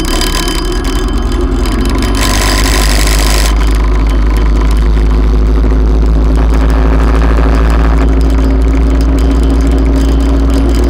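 Motorcycle engine running at low speed as the bike filters between lanes of queued traffic, over a steady low rumble, with a burst of hiss about two seconds in lasting a second and a half.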